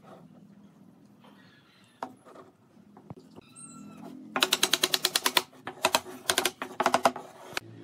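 Wooden mallet tapping a glued joint between a curved wooden piece and a straight frame rail to seat it, in quick sharp knocks. The knocks come in a run of about a second, then two shorter runs, then one last knock near the end.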